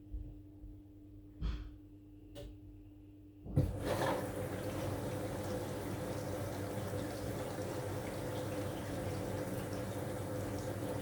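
Aqua AQW-DX12M front-loading drum washing machine: a faint steady hum and a couple of short clicks, then about three and a half seconds in water starts rushing in and keeps running steadily as the machine takes in its wash water at the start of the cycle.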